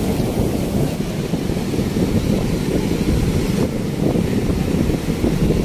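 Wind buffeting the microphone, a heavy low rumble over the steady wash of breaking sea surf.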